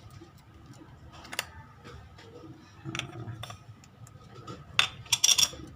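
Sony A7II camera controls being worked on a test: scattered small sharp clicks, with a louder quick run of clicks near the end.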